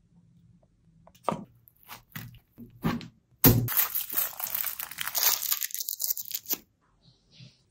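Aluminium foil crinkling as it is wrapped around a roti roll: a few separate rustles, then about three seconds of continuous crinkling as the foil is rolled up and twisted shut. It stops about a second before the end.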